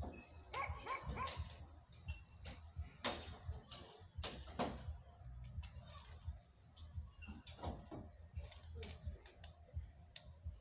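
Sharp metallic clicks and clanks from a crewman fitting jumper cables at the side of an ER9M electric train, the loudest two about three and four and a half seconds in. A few short, high calls sound about a second in, over a low rumble.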